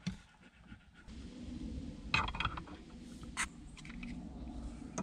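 Plastic parts of a Vanmass dash phone mount being handled: a few clicks and short scrapes as the mount's arm is tightened and the phone cradle is brought to its ball joint. A steady low rumble sets in about a second in.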